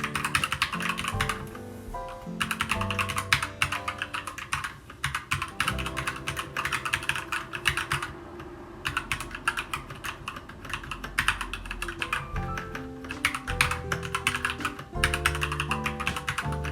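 Typing on a Keychron K2 v2 mechanical keyboard with Gateron Brown switches: rapid runs of keystrokes, fairly quiet, with brief pauses about two seconds in and around eight seconds. Background music plays underneath.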